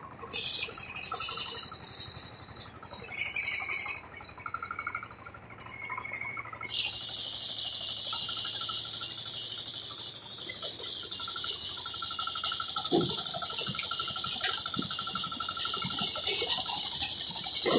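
Kuliglig hand tractor running with a steady mechanical rattle and clatter, heard from its trailer. The clatter becomes louder and continuous about seven seconds in, with a few low thumps later on.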